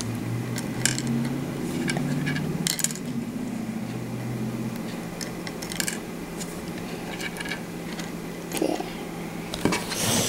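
Small plastic Lego pieces clicking and tapping as they are handled and pressed onto studs, a few scattered clicks over a steady low hum.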